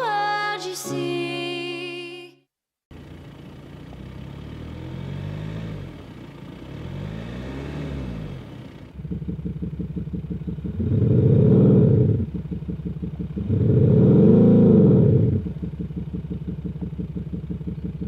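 Synthesized Maserati-style engine sound from a Maxhaust Soundbooster active sound speaker on a Volkswagen Arteon: idling with two light blips of the throttle. About nine seconds in it becomes louder and pulsing, with two strong revs up and back down. Music ends it off at the start, followed by a brief cut to silence.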